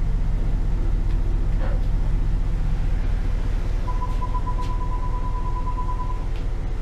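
BMW 645ci's 4.4-litre V8 engine running with a steady low rumble. About four seconds in, a high electronic beep sounds for a little over two seconds.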